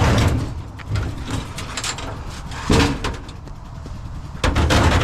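Metal file cabinet being handled and tipped over, with several clunks and scrapes of its sheet-metal body, the loudest near the end.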